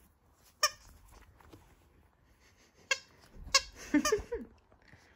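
A small dog bites and tugs a plush squeaky toy, giving several short, high squeaks spread through the few seconds, with the last ones clustered close together.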